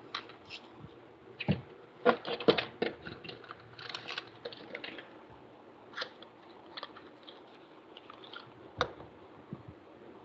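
Small plastic clicks, taps and rattles of a whiteboard marker being opened and topped up with ink. They come in a dense flurry about two seconds in, then scattered taps, with one sharp click near the end.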